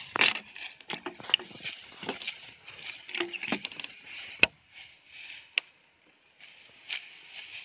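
Hand sickles cutting through dry, ripe rice stalks: irregular crisp rustling and crunching of straw, broken by sharp snaps as bunches are sheared off, the loudest about four and a half seconds in.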